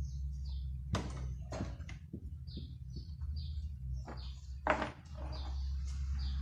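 Knocks and clunks as the steel squirrel-cage rotor of a three-phase induction motor is handled and stood upright on a wooden bench, the loudest a little before the end. A steady low hum runs underneath, and short high bird-like chirps repeat in the background.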